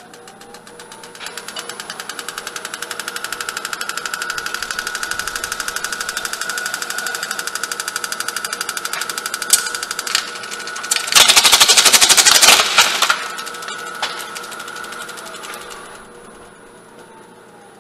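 Grizzly wood lathe running while a point tool cuts a plastic bowl mold off a resin casting, a rapid rhythmic chatter over the motor's steady whine. The whine rises in pitch in the first second as the lathe spins up. About eleven seconds in, a loud harsh scraping burst lasts about two seconds, and near the end the chatter fades and the whine falls as the lathe winds down.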